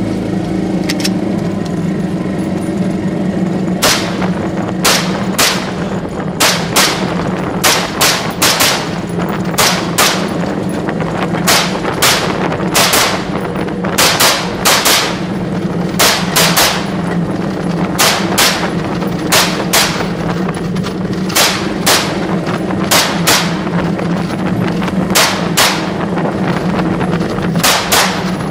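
Semi-automatic rifle fire: a long string of sharp shots starting about four seconds in, one or two a second and often in quick pairs. A golf cart runs steadily underneath.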